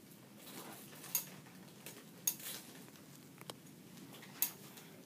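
A gravity-feed steam iron and its press cloth being handled on a pressing table: several sharp clicks and clinks, some with a short hiss after them, over fabric being moved.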